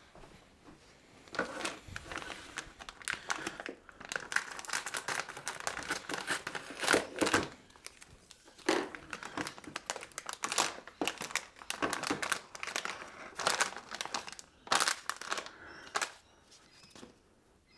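Metallised anti-static bag crinkling and crackling as it is opened and handled and a circuit board is pulled out of it, in irregular bursts with short pauses.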